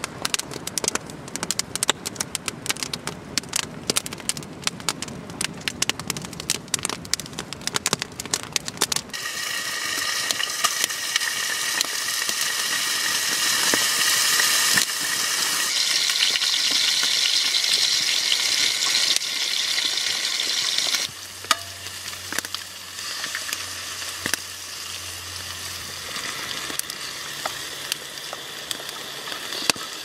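Bacon and eggs frying in a steel pan over a campfire, sizzling, with a wooden spatula stirring and scraping in the pan. For the first third there are many sharp crackles and clicks; then a loud, steady sizzle sets in, and it eases to a quieter sizzle in the last third.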